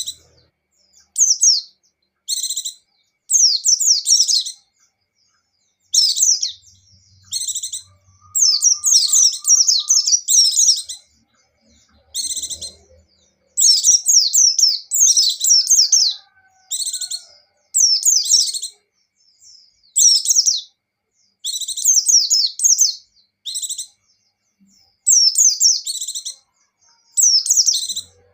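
White-eye (pleci) singing in repeated short bursts of high, thin, fast twittering, with brief pauses between phrases. This is the lively, active song that keepers call gacor.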